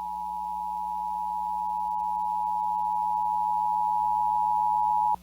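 NOAA Weather Radio's 1050 Hz warning alarm tone: a single steady tone, slowly growing louder, that cuts off abruptly just before the end. It is the attention signal that announces a warning, here a tsunami warning, is about to be read.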